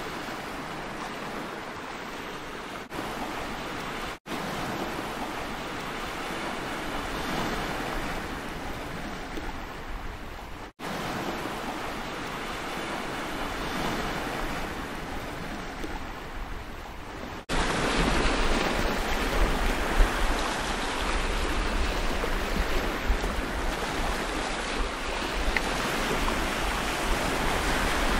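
Sea surf washing over a rocky shore, a steady rush of waves that cuts out briefly twice. About two-thirds of the way in it turns louder and fuller, with a low rumble of wind on the microphone.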